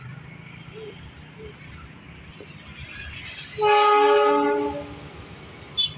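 An Indonesian (KAI) diesel locomotive sounds its horn as it approaches, in one blast of about a second made of several notes at once. The blast rises well above a low, steady rumble.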